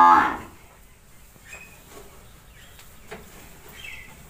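A loud, long held call breaks off and falls away in the first half second. Then faint bird chirps and a few soft scrapes and taps of a hoe working loose soil.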